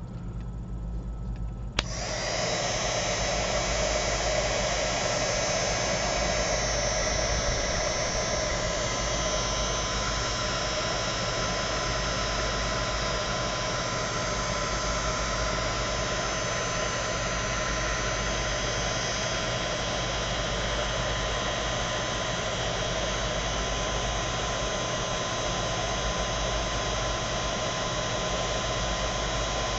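ECG mini heat gun switched on with a click about two seconds in, then running steadily: a fan blowing hot air with a steady whine.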